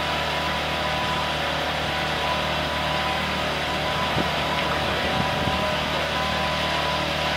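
A sailboat's engine runs steadily while motoring: a constant low hum with a few steady higher tones over an even rushing noise.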